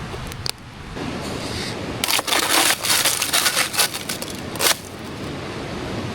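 A burst of crunching and cracking, dense sharp snaps for about three seconds starting some two seconds in, over a steady rushing background.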